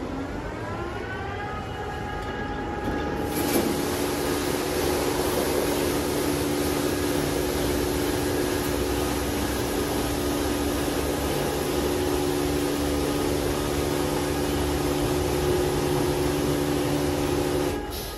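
Christ Genius Vitesse rollover car wash running its high-pressure stage. A pump motor's whine rises in pitch, then about three seconds in the jets switch on with a sudden loud hiss of water spraying the car over a steady pump hum. The hiss cuts off abruptly near the end.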